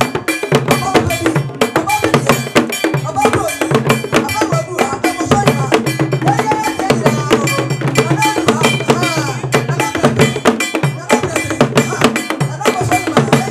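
Ghanaian traditional drum ensemble playing a fast, dense rhythm on drums struck with sticks, with a metal bell pattern and voices over it.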